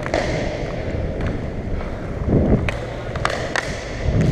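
Rumble of inline skate wheels rolling on a plastic sport-court floor, swelling twice, with a few sharp clacks of hockey stick and puck.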